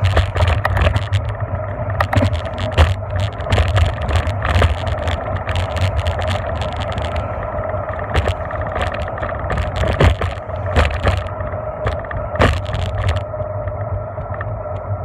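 Riding noise picked up by a bicycle-mounted camera: steady wind and tyre rumble with a constant hum. A car passes at the start, and many sharp rattling clicks come through until about two seconds before the end.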